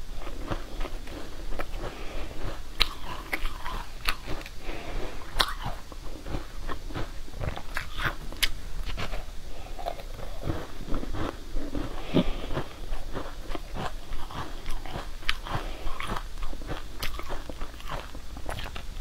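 Close-up eating sounds of a pink frozen block coated in green powder being bitten and chewed: irregular crisp crunches and crackles with chewing between them.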